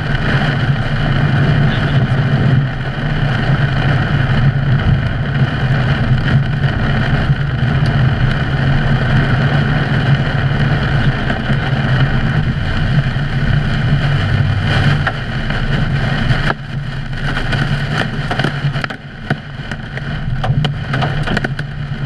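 Heavy rain beating on a car's windshield and roof while driving through a thunderstorm's rain core, over the car's steady low road noise. From about sixteen seconds in it turns uneven, with many sharp ticks.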